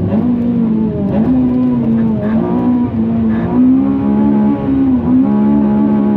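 Honda Civic FN2 Type R's K20 four-cylinder engine running at high revs, its pitch held high and steady with a few brief dips and recoveries.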